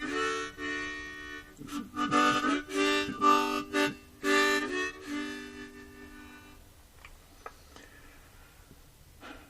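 Background music of held, reedy chords in short phrases, stopping about two-thirds of the way through and leaving only a few faint clicks.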